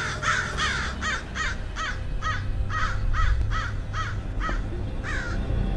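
Crows cawing in a rapid series of short, harsh caws, about three a second, that stop a little after five seconds in.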